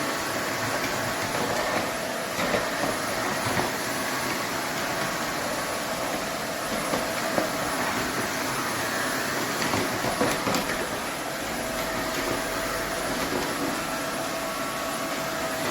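Roborock F25 cordless wet-dry vacuum running, a steady motor whine and rolling-brush noise with a few light knocks.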